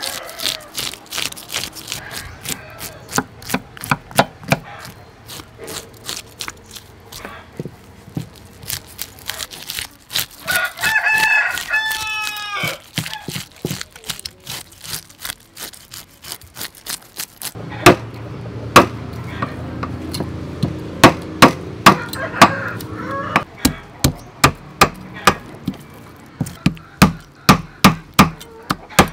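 A fish scaler scraping the scales off a large goldfish on a wooden chopping board, in short repeated strokes, a few a second. A rooster crows once, loudly, about ten seconds in.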